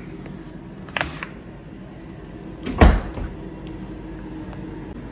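A door being handled: a couple of short knocks, then a heavier thump a little under three seconds in, the loudest sound, over a steady low hum.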